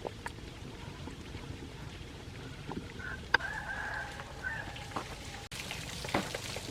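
A rooster crowing once, a held, wavering call about three seconds in, over outdoor background noise with a few sharp clicks and knocks.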